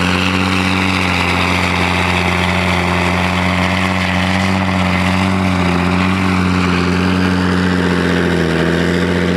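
Pulling tractor's engine running loud and steady at constant revs, its pitch dipping slightly about eight seconds in.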